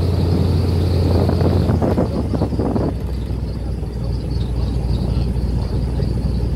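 Airboat's engine and large air propeller running at cruise, a loud steady low drone; its note drops a little about two seconds in.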